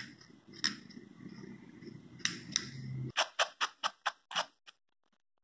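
Slicker brush raking through a Lhasa Apso's long coat: a few scattered scratches, then about three seconds in a quick run of about eight short scratchy strokes, about five a second. Under the first three seconds runs a low rumble that stops when the fast strokes begin.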